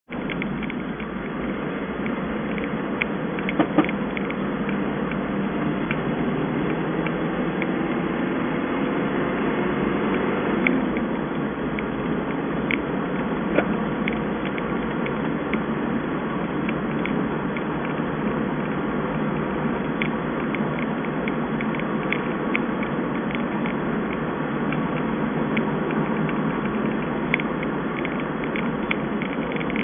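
Steady road and engine noise inside a moving car's cabin, with scattered sharp rattling ticks now and then.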